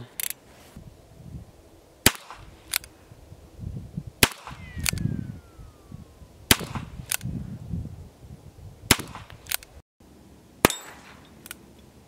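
Ruger Single-Six .22 LR single-action revolver firing single shots about two seconds apart, each followed within a second by a fainter, shorter crack. A falling whine trails one shot near the middle.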